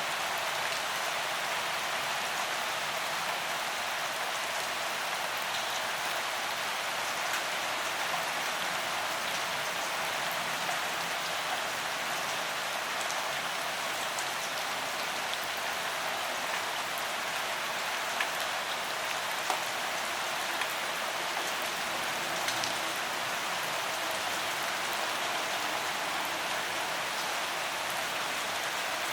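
Steady rain falling, an even hiss with the patter of scattered individual drops.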